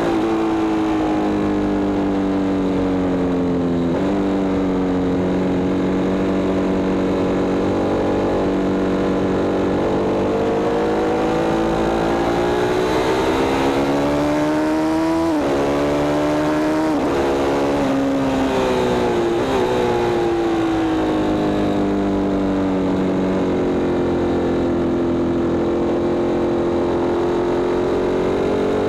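Sport motorcycle engine at high revs on a race track. Its pitch climbs slowly as it accelerates, drops suddenly at gear changes about four seconds in and again about halfway, then falls and rises again. Wind rushes over the fairing throughout.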